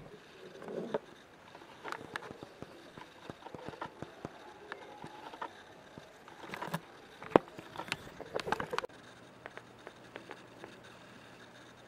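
Close handling noise: irregular clicks, taps and rustles as a pet rat moves on a hand held right by the camera's microphone, with one sharp louder click a little past the middle. About nine seconds in it turns quieter, with a faint steady low hum and a few soft ticks.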